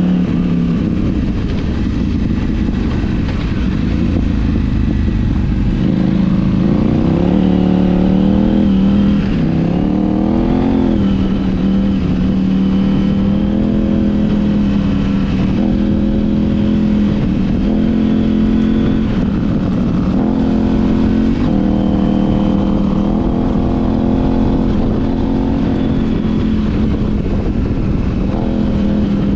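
KTM 790 Adventure R's parallel-twin engine running under changing throttle, its pitch rising and falling as the rider rolls on and off, over a low wind rumble on the microphone.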